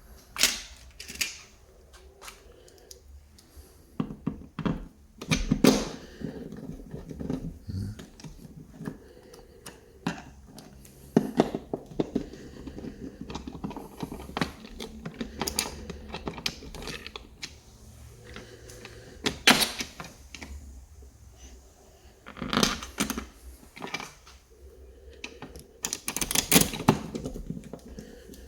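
Irregular clicks, taps and knocks of small plastic switch parts and hand tools being handled while a wall push-button switch is fitted. The sharpest clatters come near the start, around five to six seconds in, and in clusters later on.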